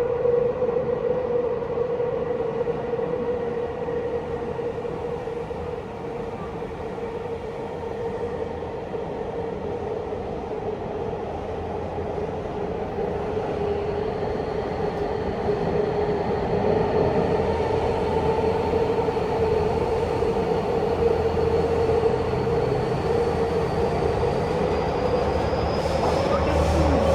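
Tokyu 5050 series electric train running through a subway tunnel, heard from inside the car. It makes a steady rumbling running noise with a strong humming whine. Over the second half a faint high whine slowly rises in pitch.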